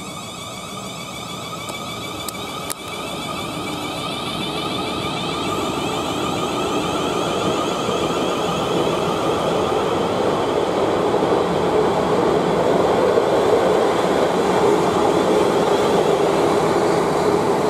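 Class 450 Siemens Desiro electric multiple unit pulling out of the station and accelerating past: its traction motors give a rising electric whine over the rumble of the wheels on the rails, growing steadily louder as the carriages go by. A single sharp click about three seconds in.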